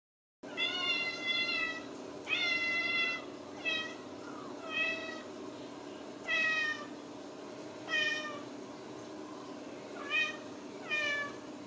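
A Ragdoll cat meowing repeatedly, about eight calls spread over the clip. The first two are long, drawn-out meows and the later ones are shorter, each sliding slightly down in pitch.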